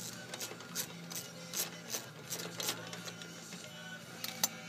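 Socket wrench clicking in a steady rhythm, about two to three clicks a second, as a half-inch bolt is backed out of a riding mower's brake assembly.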